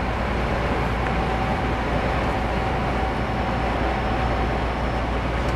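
Steady drone inside the cab of a Scania R440 truck cruising at motorway speed: diesel engine hum under tyre and wind noise, with a faint steady whine.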